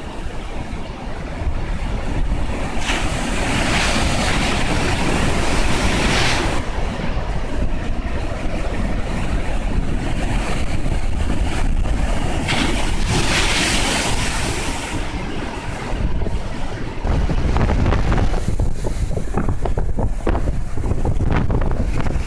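Rough sea stirred up by a distant typhoon: surf crashing and washing in, with two big breaking waves swelling up about three and twelve seconds in. Wind buffets the phone's microphone throughout, gustier near the end.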